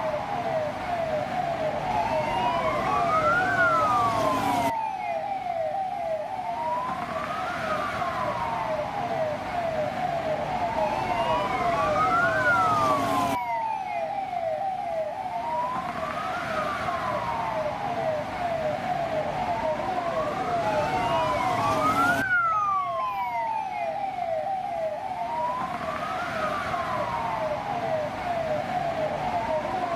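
Police car siren sounding continuously: a wailing tone that rises and falls about every four seconds, layered over a faster, rapidly repeating yelp.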